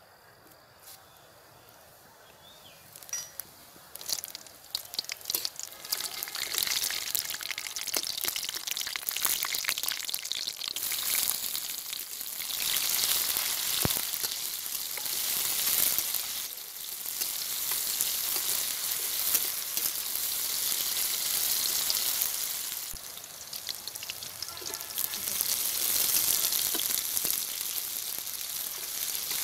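Whole cumin and fenugreek seeds crackling in hot oil in a wok, then sliced onions with green and dried red chillies sizzling steadily as they fry. The mixture is turned with a metal spatula. The sizzle starts a few seconds in and dips briefly a few times.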